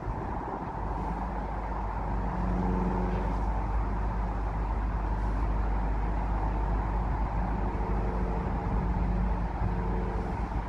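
Steady low rumble of a train approaching from a distance, with a faint engine hum that swells and fades twice.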